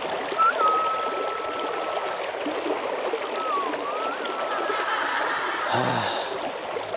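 A person whistling two long notes, the second dipping in pitch and rising back before holding steady, over the steady rush of river water flowing around waders.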